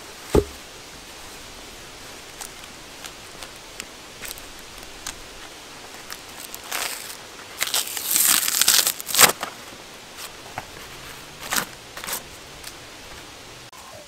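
Blade scraping and peeling bark on a birch log, in scattered short scrapes and cracks with a denser stretch of tearing and scraping a little past halfway. A single hard knock about half a second in.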